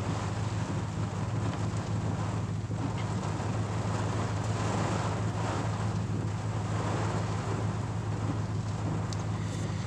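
Steady rain and wind on a pickup truck's roof and windshield, heard from inside the cab, over the low, even hum of the truck's idling engine and its defroster fan blowing.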